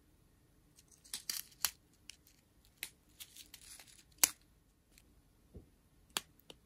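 Small plastic bags of diamond-painting drills being handled, crinkling in short bursts with scattered light clicks. A sharp click about four seconds in is the loudest sound.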